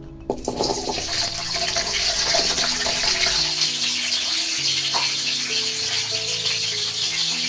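Whole shallots hitting hot cooking oil in a wok and sizzling. The sizzle starts suddenly about a third of a second in and then keeps going steadily as they fry.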